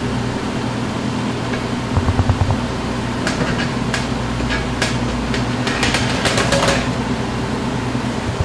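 A steady machine hum, with a few low thuds about two seconds in and then a scattered run of sharp clicks and taps that grows busier toward the end.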